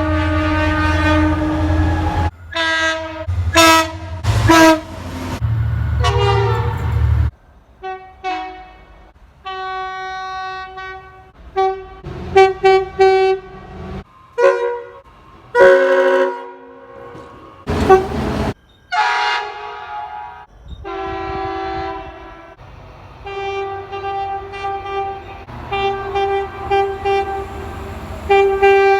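Train air horns sounding a string of long and short blasts, several different horns heard one after another with sudden changes between them. A low rumble of the train runs under some of the blasts.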